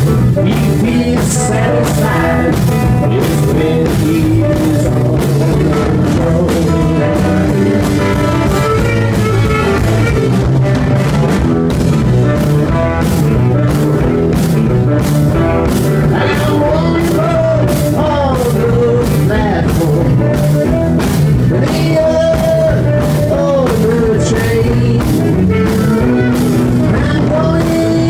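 Live rock band playing a blues-rock number on electric guitar, tenor saxophone, bass and drums, over a steady drum beat.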